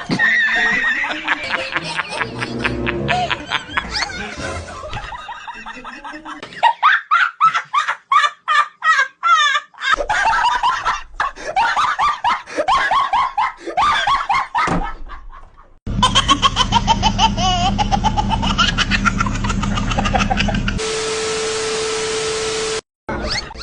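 Laughter over music. Near the end a steady single tone with hiss lasts about two seconds.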